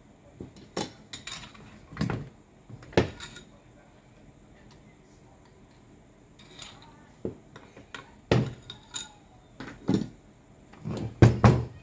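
Metal demolition-hammer parts clinking and knocking as they are handled: about a dozen separate clinks and taps, some in quick clusters, the loudest near the end.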